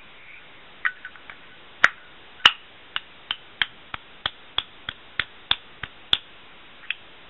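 Zippo lighter clicking sharply over and over as it is worked to get it lit after a refill. There are a few clicks, then an even run of about three a second from around three seconds in.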